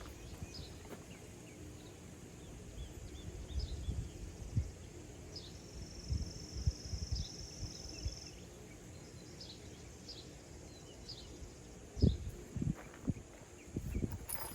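Outdoor background with a steady high insect drone, a louder insect buzz for about three seconds in the middle, scattered short bird chirps, and occasional low knocks, the loudest about twelve seconds in.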